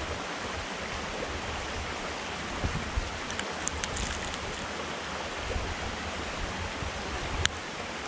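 Steady rushing of a small stream. A few light clicks and rustles of gear being handled in a pack come about three to four and a half seconds in, with one sharp click near the end.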